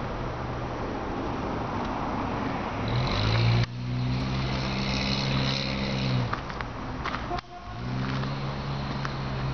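A car engine running steadily at idle, with a low, even hum. Its pitch rises slightly about three seconds in and sags about six seconds in, and there are a few faint clicks around seven seconds.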